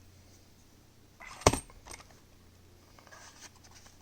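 Brass rifle cartridges handled on a hard surface: one sharp metallic clink about a second and a half in, with a few lighter clicks around it and again near the end.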